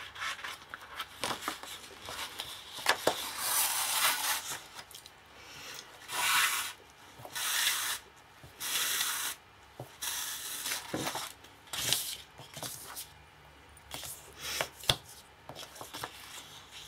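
Sheet of cardstock being handled and turned over while thread is pulled through its holes: repeated bursts of paper rustling and rubbing, each about a second long, with a few light taps between them.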